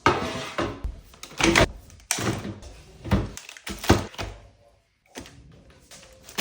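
A series of sharp knocks and thuds, about six or seven, with rustling between them. It sounds like doors and objects being handled in a small room.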